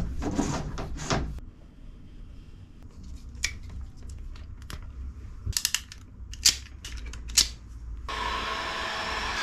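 Hand wire strippers cutting and stripping marine wire ends: a handful of sharp snips and clicks amid soft handling of the wire. A steady hiss starts near the end.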